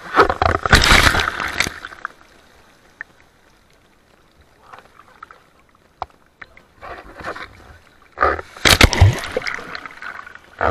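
Sea waves breaking and sloshing, in two loud noisy surges: one at the start lasting about two seconds, and another about eight seconds in, with quieter water noise between.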